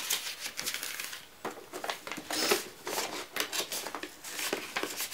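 Paper and card rustling and crinkling as gifts are handled, in short, irregular bouts.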